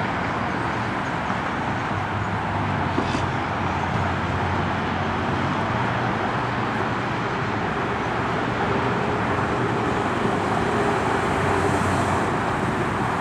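1979 Dodge Li'l Red Express pickup's 360 V8 running steadily through its vertical exhaust stacks as the truck drives slowly by, with road and traffic noise; it grows a little louder near the end as the truck turns toward the listener.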